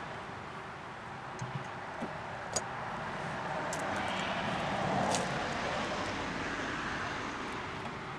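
A road vehicle passing by, its noise swelling to a peak about halfway through and then fading, with a few faint light clicks.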